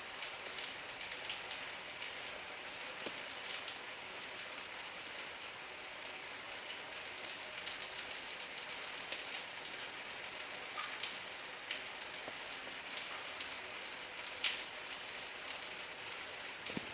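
Light rain falling steadily: an even high hiss with scattered small drop ticks.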